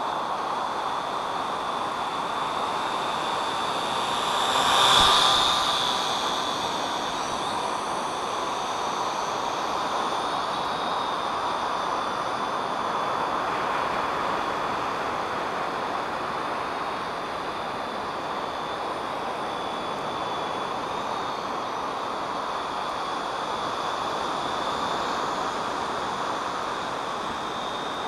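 Syma X8C quadcopter's four motors and propellers running with a steady high whine over a noisy hum, swelling louder about five seconds in, then settling back.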